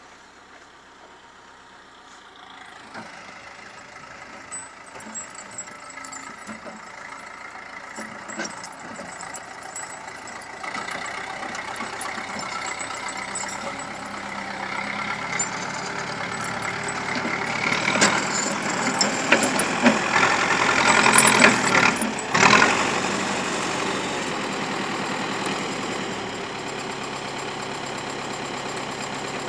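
Zetor 7211 tractor's four-cylinder diesel engine running as it pushes snow with a front blade. It is faint at first, grows louder and busiest about two-thirds of the way in, then settles to a steadier run.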